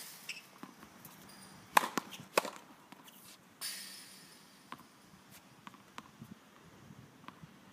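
Tennis balls struck by rackets and bouncing on a hard court, two sharp pops close together a little under two seconds in, then faint scattered taps of a ball bounced before a serve.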